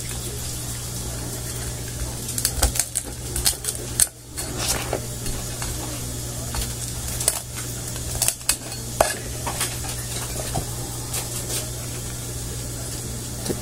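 Cleaver chopping through a lobster onto a plastic cutting board: irregular sharp knocks and cracks, with a steady low hum underneath.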